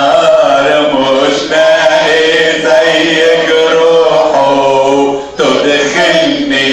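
Church hymn being sung, with long held notes, and a short break about five seconds in.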